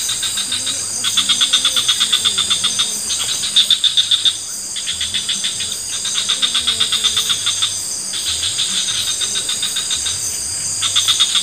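Night-time rainforest insect chorus: a steady high-pitched buzz with a fast pulsing cricket-like trill over it, coming in bouts of a second or two and breaking off briefly several times.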